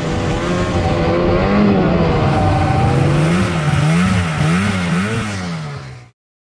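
Snowmobile engine revving: it runs steadily, then its pitch rises and falls several times in quick blips, and it cuts off suddenly near the end.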